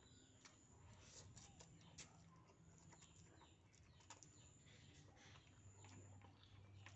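Faint sounds of eating noodles: slurping and chewing with small wet clicks. Birds chirp in the background.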